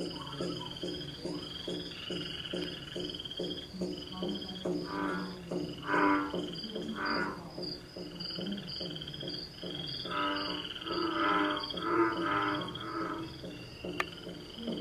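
A chorus of frogs calling: a fast run of low pulsed croaks overlaid with repeated high trills, with louder croaks breaking in now and then.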